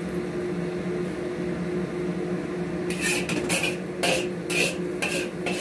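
A steady low kitchen hum, joined from about three seconds in by about six short, sharp noises, one every half second or so, around a steaming cooking pot and its lid.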